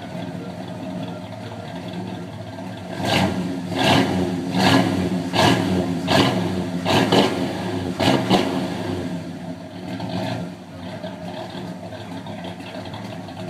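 1988 Chevrolet Monte Carlo SS's 305 V8, freshly rebuilt in the bottom end, idling, then blipped about eight times in quick succession from about three seconds in before it settles back to idle.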